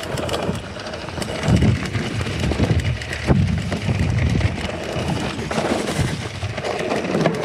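Santa Cruz Bullit electric mountain bike riding over rocks: a dense run of sharp knocks and rattles from the tyres, frame and drivetrain hitting stones, with dull low thumps mixed in.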